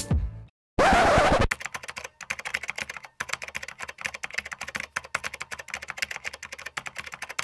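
The music ends and, about a second in, a short loud noisy whoosh sounds. It is followed by a long run of rapid, irregular computer-keyboard typing clicks, an added sound effect.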